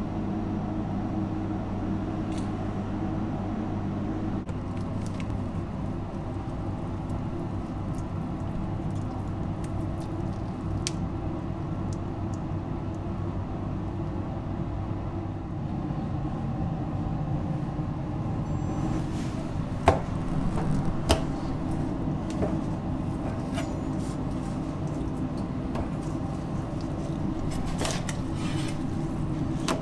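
Steady low machine hum of kitchen equipment, with a few sharp knocks about two-thirds of the way in. Near the end, a chef's knife cuts through raw chicken wings on a plastic cutting board.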